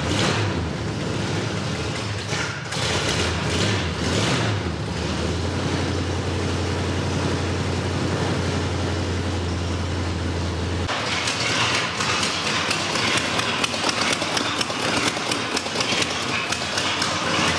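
Chevrolet V8 in a 1972 Chevelle running at a rough idle, with a steady low hum. About 11 s in the sound changes abruptly to a busier run full of sharp ticks. The engine has a miss and runs rich on fouled plugs.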